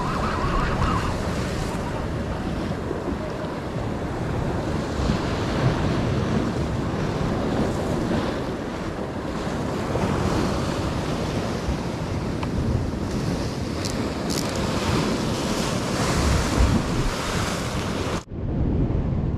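Sea waves washing against a rocky shore, a steady rush of surf with wind buffeting the microphone. The sound cuts off abruptly near the end.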